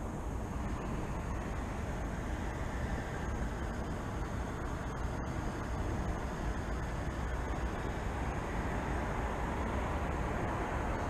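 Steady road traffic noise, a constant rumble that grows a little louder in the second half.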